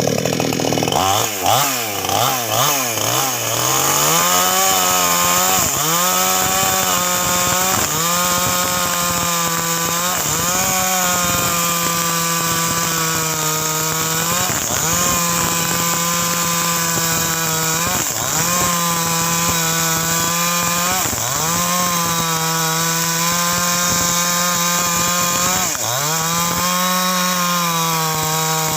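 Petrol chainsaw revving up, then running at high revs while cutting mahogany wood, its pitch dipping briefly every few seconds as the chain bites under load.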